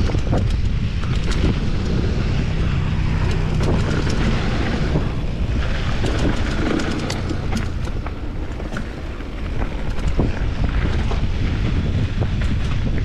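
Fast mountain bike descent on a loose dirt and gravel trail: wind buffets the microphone over the rumble of the tyres on the ground, with frequent sharp clicks and rattles throughout.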